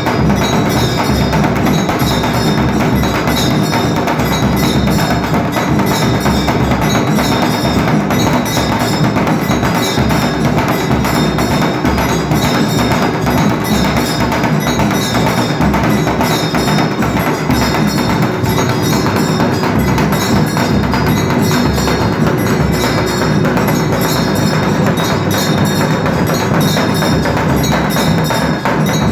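Dhol drum beaten continuously together with ringing metal bells: the percussion of a Hindu aarti. It is a dense, loud, unbroken din.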